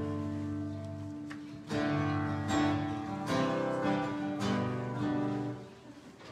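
Guitar playing the opening of a worship song: a few strummed chords, each left to ring, breaking off shortly before the end.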